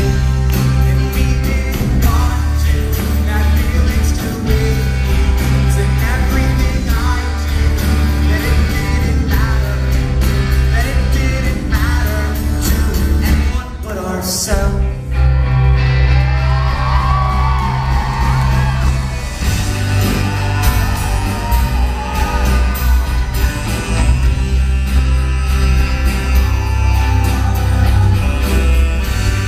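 Live rock band playing through a concert hall's PA, with sung vocals over guitars, keyboard and a heavy bass line. The music breaks off briefly about halfway, and a saxophone plays in the second half.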